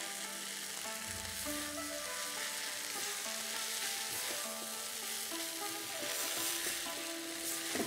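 Noodles and vegetables sizzling in a hot wok as they are stir-fried and tossed with a wooden spatula, a steady hiss, with soft background music.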